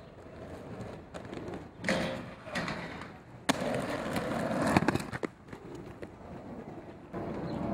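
Inline skate wheels rolling over asphalt, a rough rolling noise in several passes, the loudest starting suddenly about halfway through and lasting a couple of seconds, ending in a few sharp clicks.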